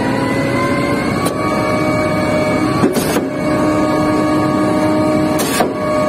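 Putzmeister 49-5 concrete pump's engine and hydraulic system running, a steady drone with a whining tone. A short hissing clunk comes about three seconds in and another near the end.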